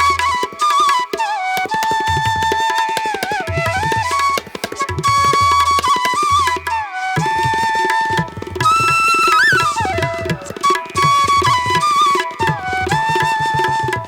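Background music: a bamboo flute playing an ornamented melody over tabla-like hand-drum rhythm.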